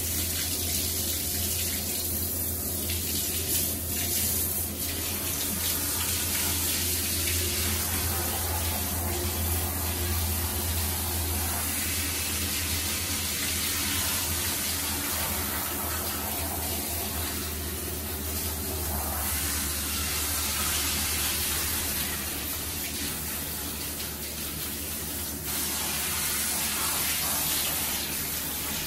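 Tap water running steadily, with a low steady hum underneath.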